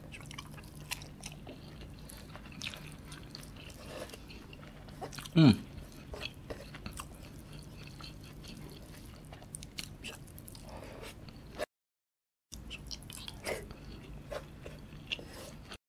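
Close-up chewing of a mouthful of rice and curried meat eaten by hand, with soft wet mouth clicks and smacks. About five seconds in comes a brief sound sliding sharply down in pitch, the loudest moment. The sound drops out for a moment about three quarters of the way through.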